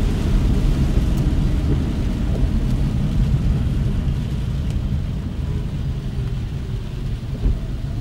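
Steady low rumble of a car driving in the rain: engine and road noise with the hiss of rain and wet tyres, easing slightly near the end.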